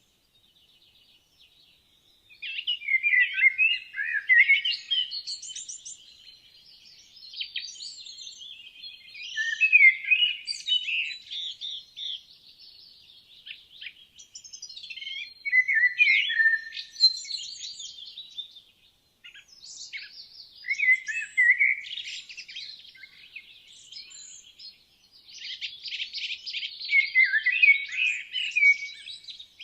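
Woodland songbirds singing: a burst of quick, warbling song every five or six seconds, with fainter twittering in between.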